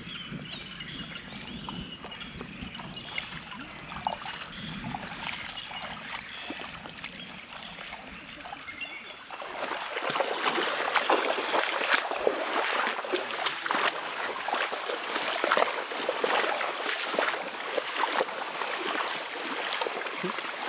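Swamp forest ambience: a steady high insect drone with bird chirps and a low rumble. About nine seconds in it changes suddenly to louder, continuous splashing and sloshing of water.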